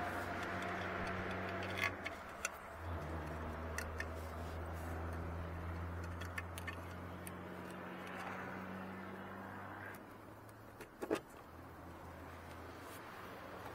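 A vehicle engine running steadily in the background, its low hum shifting in pitch about three seconds in and fading near the end. A few light clicks and small metallic rattles come from the cab light and its small parts being handled.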